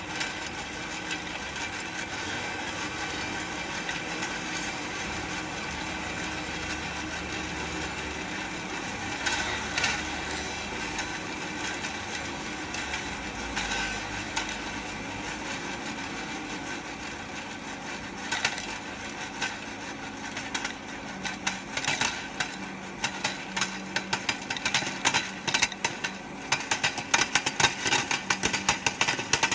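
Fluid-bed coffee roaster's hot-air fan blowing steadily as popcorn kernels swirl in its chamber. A few kernels pop about ten seconds in, then the popping picks up and becomes rapid and dense near the end.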